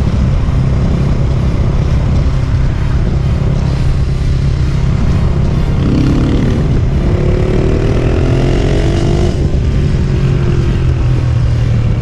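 KTM single-cylinder motorcycle riding at road speed, with wind rushing over the helmet-camera microphone. About six seconds in the engine note rises as the bike accelerates, then drops away at about nine and a half seconds.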